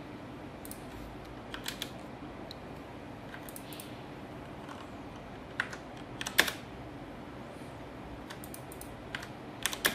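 Scattered keystrokes and clicks on a computer keyboard and mouse, a few at a time in short groups, the loudest group about six and a half seconds in.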